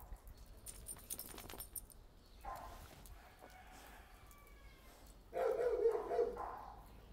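Dogs barking at a shelter, loudest in a stretch of barking about five seconds in, with soft rustling and handling noise earlier on.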